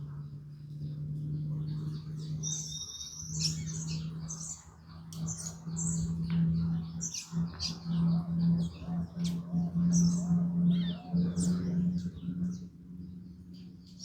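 Several small birds chirping and calling in quick, overlapping short notes, over a steady low hum.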